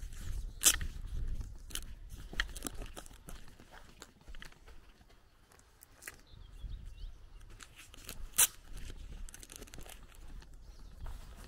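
Footsteps crunching on a dirt and gravel lane at walking pace, with two sharp, louder clicks, one about a second in and one near the end.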